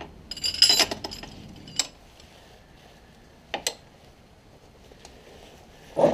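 Steel spanners clinking and knocking together as a second spanner is hooked onto the 16 mm spanner on the serpentine belt tensioner for extra leverage. A quick cluster of clinks comes in the first second, then single clinks about two and three and a half seconds in, and a louder knock comes at the end.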